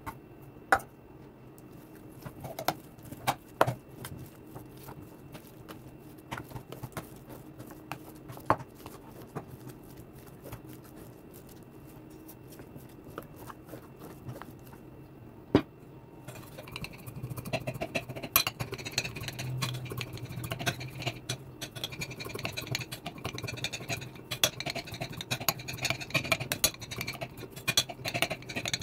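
Kitchen handling: boiled potatoes dropped into a stainless steel bowl and mashed with a spoon, with scattered sharp clinks of metal on the bowl. Then a knife chopping parsley on a marble board, a dense run of rapid taps.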